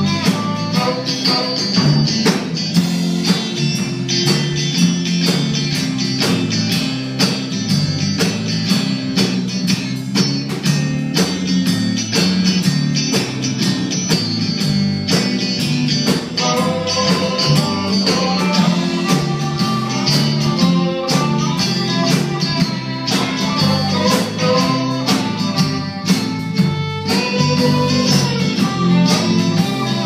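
Live country band playing an instrumental break: fiddle and electric guitar over a walking bass line and a steady drum beat, with the fiddle melody most prominent in the second half.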